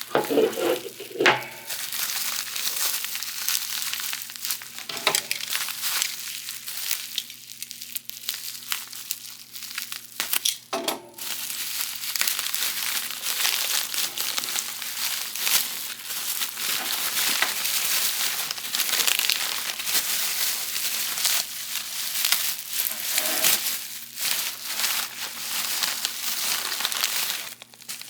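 Plastic packaging crinkling and rustling almost without a break as collectible figure pieces are unwrapped by hand, with a few sharper handling knocks near the start and about eleven seconds in.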